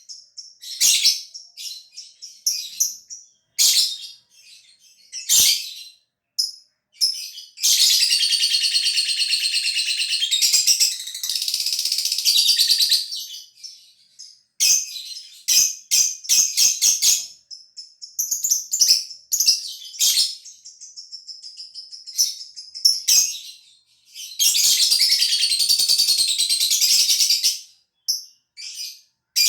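Lovebird singing: scattered short, sharp high chirps, and twice a long unbroken high chattering trill lasting several seconds. These long trills are the 'ngekek' song prized in contest lovebirds.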